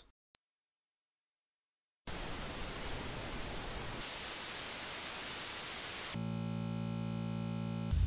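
Synthetic tinnitus simulations played one after another: a steady high-pitched ringing tone for about two seconds (the loudest part), then a steady white-noise hiss, a brighter static hiss from about four seconds in, and a low electrical buzz for the last two seconds.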